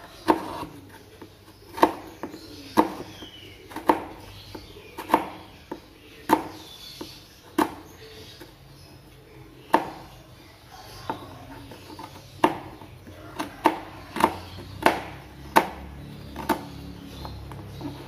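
Kitchen knife chopping a block of palm sugar on a plastic cutting board: sharp knocks of the blade through the sugar onto the board, about one a second at uneven spacing, coming closer together near the end.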